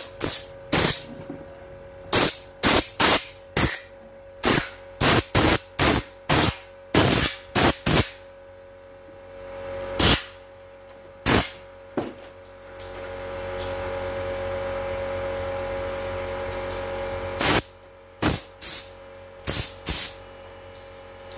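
Short blasts of compressed air from an air blow gun, blowing dust and debris out of an embroidery machine's carriage unit. A quick series of sharp hisses is followed past the middle by a steadier blast of several seconds, then more short blasts near the end.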